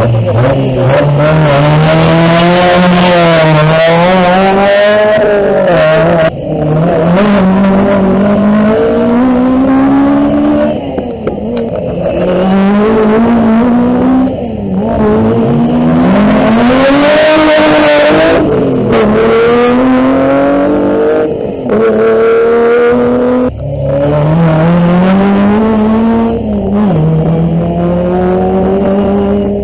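Rally car engine revving hard, its pitch climbing and dropping again and again with short breaks at the gear changes and lifts.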